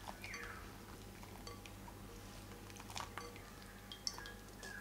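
Blueberries swished and lifted by hand from a glass bowl of water into a stainless-steel mesh strainer: light sloshing and dripping water with a few small clinks of metal and glass, the sharpest about three and four seconds in.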